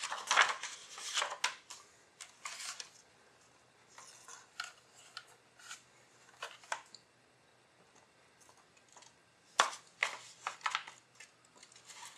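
Sheets of paper rustling and sliding as they are handled and laid over coroplast, in irregular bursts with a few sharp clicks and knocks, a cluster of them about ten seconds in.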